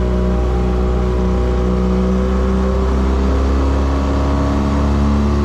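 Outboard motor of a small fishing boat running steadily under way, its note shifting slightly about three to four seconds in.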